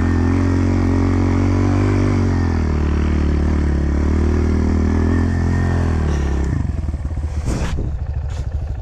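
Pit bike's small single-cylinder engine running at steady revs, its pitch wavering slightly, then dropping to a low pulsing idle about six and a half seconds in. A couple of short clicks come near the end.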